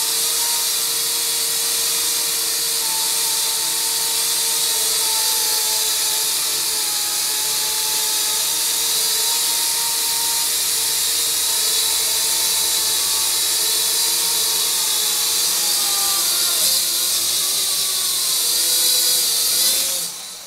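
AVATAR YD-711 (AT-99) toy quadcopter's small electric motors and propellers running with a steady high whine while the craft scoots and tips on the floor without lifting off. The pitch dips and rises near the end, and the motors cut off abruptly about 20 seconds in.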